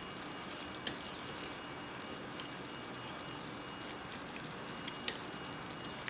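Lock pick clicking inside an old Soviet padlock as its pins are single-pin picked under light tension: three sharp clicks spread over several seconds, with a few fainter ticks between them.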